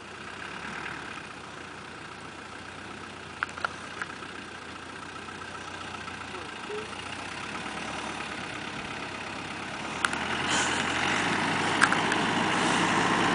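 Off-road vehicle's engine running steadily, getting louder about ten seconds in, with a few sharp knocks.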